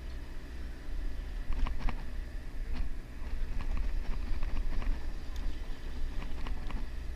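Low steady rumble on the deck of a fishing boat, with scattered small clicks and taps scattered through it.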